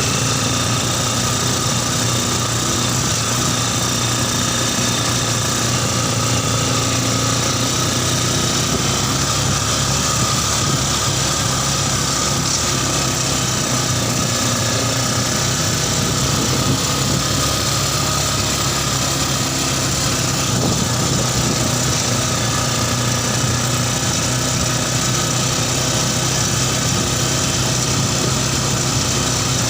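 Yamaha Scorpio Z's 225 cc single-cylinder four-stroke motorcycle engine, fitted in a home-built mini buggy, running steadily at an even speed.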